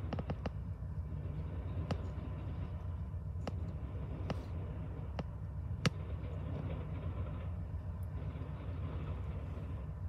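Amtrak Empire Builder passenger train rolling past, heard muffled from inside a car: a steady low rumble with scattered sharp clicks, the loudest about six seconds in.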